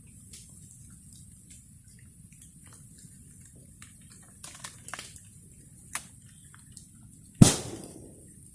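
Bonfire burning with a steady low rumble and hiss, scattered small crackles, and one loud sharp pop of the burning wood about seven seconds in that rings down briefly.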